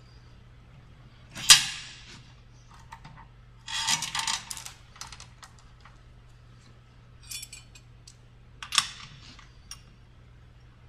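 Metal chain and hardware clinking and rattling as they are handled, in a few separate bursts with a short rattle about four seconds in.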